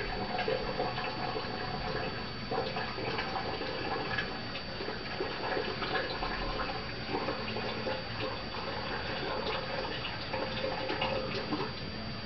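Water circulating through a reef aquarium's plumbing and filtration: a steady trickling, splashing rush with small crackles, and a faint steady high whine underneath.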